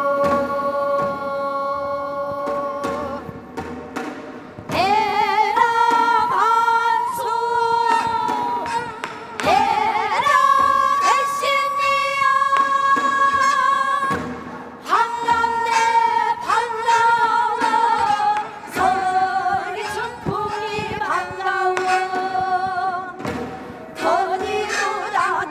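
Women singing Namdo minyo, Korean southern folk song, in a full-throated style with long held notes that waver and slide in pitch. Traditional accompaniment from daegeum flute and janggu and buk drums plays beneath the voices.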